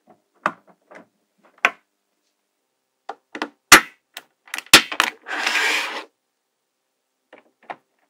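Small magnetic balls clicking and snapping together as a slab of them is fitted onto a larger magnetic-ball build. There are scattered light clicks, two sharp loud snaps near the middle, then a brief rattling hiss of less than a second, and a few faint clicks near the end.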